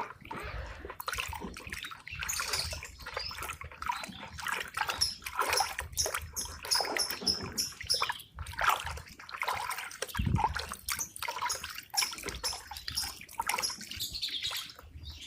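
Water being stirred in a container, with irregular splashing and sloshing.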